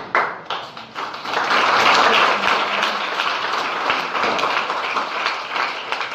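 Audience applauding: many people clapping, swelling about a second in and going on steadily.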